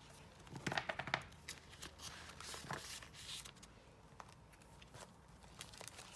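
Paper sticker sheets and plastic album sleeves rustling and clicking as they are handled, with a quick cluster of crisp clicks about a second in and another near the middle.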